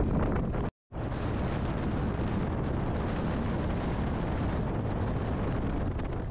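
Wind buffeting the microphone aboard a motorboat under way, over the steady noise of the engine and water against the hull. The sound cuts out completely for a split second just under a second in.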